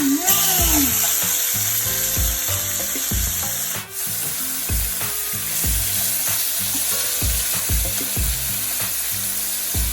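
Food sizzling as it fries in hot oil in a pan, a steady hiss.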